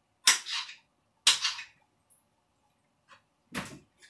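Kitchen knife striking a cutting board in two sharp cutting strokes about a second apart, then a faint tap and a heavier knock near the end.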